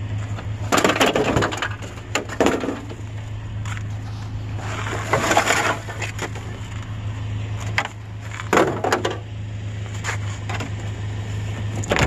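Plastic trash bags crinkling and rustling inside a wheeled garbage bin as it is rummaged through, in several short bursts. A steady low engine hum from the idling pickup runs underneath.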